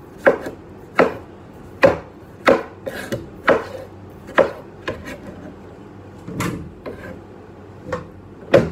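Chef's knife cutting tomatoes into wedges on a plastic cutting board: a sharp knock of the blade hitting the board about every three-quarters of a second, then spacing out over the last few seconds.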